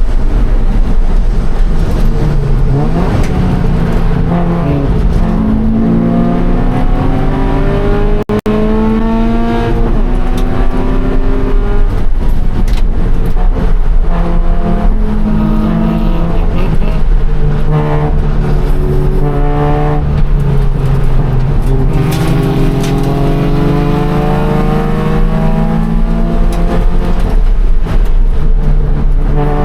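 2013 Scion FR-S's flat-four engine at race pace, its revs climbing and dropping repeatedly through gear changes and braking. Over the last several seconds it makes one long climb in a single gear. The sound cuts out briefly about eight seconds in.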